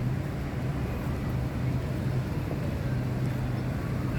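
Steady low hum with an even background rumble, no voice.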